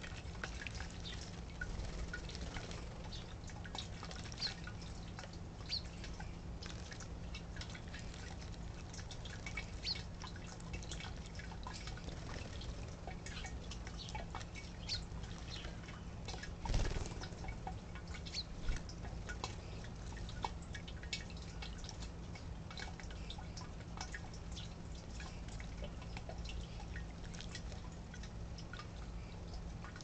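House sparrows bathing in a shallow bird bath: scattered small splashes and drips of water, with one louder splash a little past halfway, over a steady low hum.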